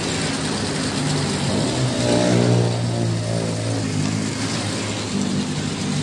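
Single-tub top-loading washing machine running a wash cycle with carpet in soapy water: a steady motor hum under water churning, the hum swelling and easing off again in the middle as the tub turns.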